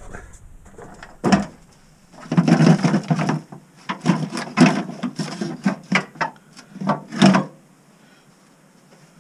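Hands working at a plastic cowl panel below a car's windshield: a run of knocks, rattles and scraping from about a second in, stopping near the end.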